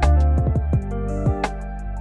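Instrumental background music: sustained chords over a steady low bass, with drum hits that fall in pitch.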